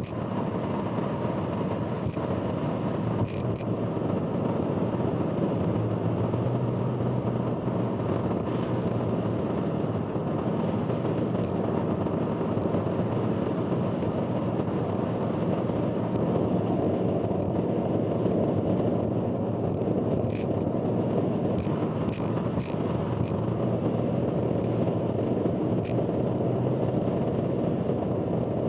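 Car driving on an expressway: steady road and tyre rumble with scattered sharp clicks and rattles, the loud abnormal noise the uploader warns about.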